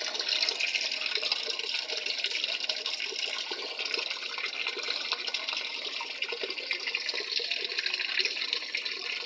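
Water running steadily into the tub of a top-load automatic washing machine as it fills to its middle water-level setting.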